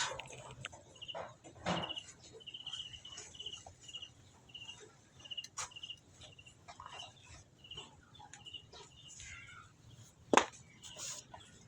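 A small animal chirping steadily, short high chirps at about two a second, over a few sharp knocks; the loudest knock comes near the end.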